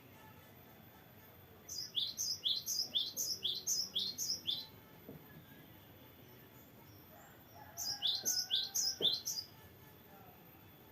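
Cinereous tit (gelatik batu) singing: two bouts of quick, high whistled notes, each note falling in pitch, repeated about three times a second. The first run is about three seconds long and the second, near the end, is shorter.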